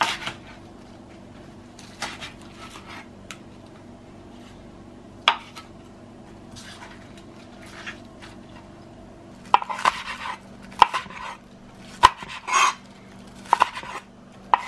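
Chef's knife chopping green onions on a cutting board: a few scattered knocks of the blade on the board, then a quicker, louder run of chops in the last five seconds.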